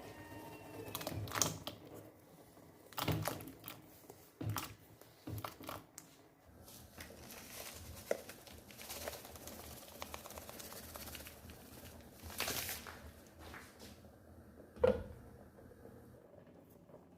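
Kitchen preparation sounds: irregular knocks and taps of utensils and food being handled, with a stretch of steady hiss through the middle and one sharp knock near the end.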